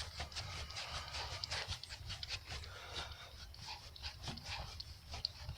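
Faint, irregular small clicks and scraping of hands working a spark plug in by hand on a Dodge 5.9 V8.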